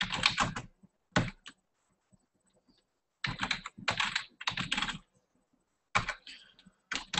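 Typing on a computer keyboard: several bursts of quick keystrokes with short pauses between them, the longest pause lasting nearly two seconds.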